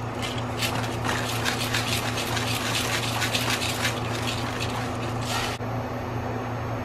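Liquid pouring and splashing into a frying pan, stopping abruptly about five and a half seconds in, over a steady low hum.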